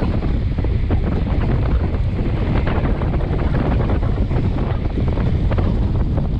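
Loud, steady wind noise buffeting the microphone of a bicycle-mounted camera on a fast descent at about 40 km/h. It is a deep, constant rush, with scattered faint ticks through it.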